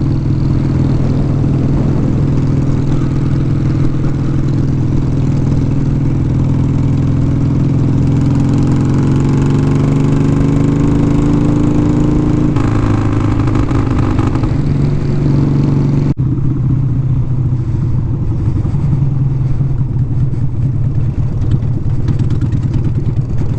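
Motorcycle engine running while riding, heard from the rider's helmet. The engine pitch climbs steadily for several seconds, drops abruptly a little past halfway, and the sound changes sharply again a few seconds later.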